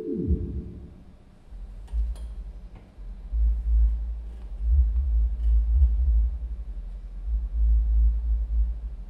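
Theremin tone sliding steeply down in pitch at the start, then a deep, wavering low rumble that swells and fades from about a second and a half in, with a few faint clicks.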